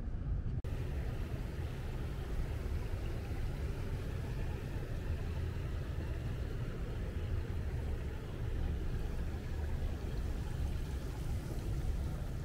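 Downtown street ambience: a steady low rumble of traffic, with a brief dropout just under a second in.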